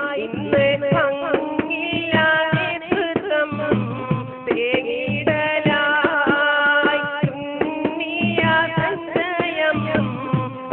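A man singing a song into a microphone, his melody wavering and winding, over hand drums keeping a steady beat.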